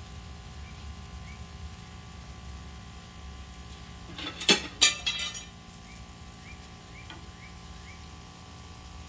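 A few sharp metallic clinks of cooking utensils or cookware knocking together, two loud strikes close together about halfway through followed by a couple of softer ones, over a steady low hum.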